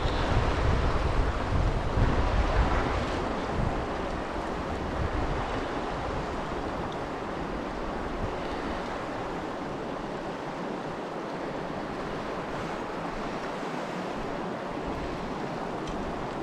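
Steady rush of a shallow river flowing over rocks and stones, with wind buffeting the microphone for the first few seconds.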